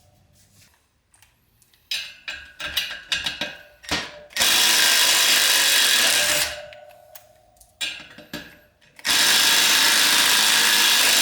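Power tool spinning out the brake rotor bolts on a dirt bike's wheel hub. It runs in two steady bursts, one about four seconds in and another from about nine seconds in, with a few clicks and knocks between them as the tool is set on the bolts.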